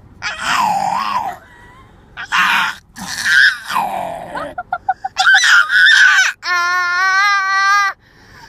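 Young child making monster noises: several raspy shrieks and growling cries, a quick run of short staccato yelps about four and a half seconds in, then one long, steady high-pitched squeal near the end.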